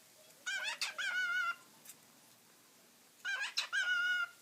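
Male cockatiel calling while mating with a hand: two bouts of quick chirps, each ending in a held, wavering whistle, the first about half a second in and the second about three seconds in.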